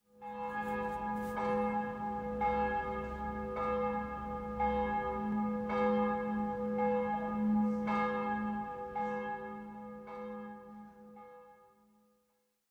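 Bell ringing, a new stroke about once a second, each note ringing on over a steady low hum; it fades away near the end.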